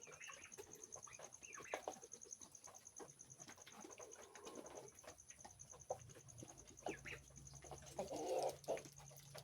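Poultry feeding, with a few low, soft coos and faint scattered taps.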